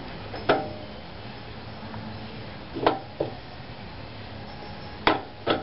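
Five short light clicks and knocks, spread out and irregular, from tools and parts being handled while the hub bore is being greased. A steady low hum sits under them.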